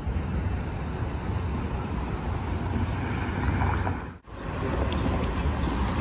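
City street ambience: steady traffic noise with a low rumble. It drops out briefly about four seconds in, then resumes.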